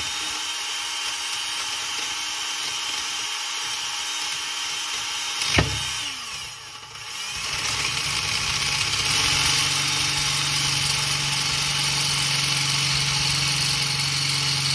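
Cordless drill running at high speed, boring out the hole of a metal battery cable ring terminal. A sharp click about five and a half seconds in, then the drill's pitch falls and it dips for a second or two before running back up to a steady whine.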